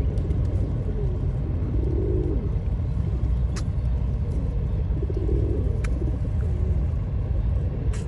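Flock of feral rock pigeons cooing, low warbling coos coming every couple of seconds, over a steady low rumble. Two sharp clicks come near the middle.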